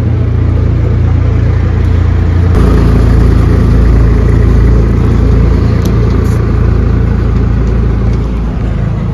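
A motor engine running steadily close by, a loud low rumble that grows a little louder about two and a half seconds in and eases slightly near the end.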